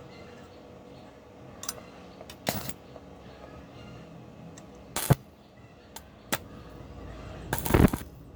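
A few sharp metallic clinks and knocks, then a louder half-second clatter near the end: metal parts or tools being handled and set down.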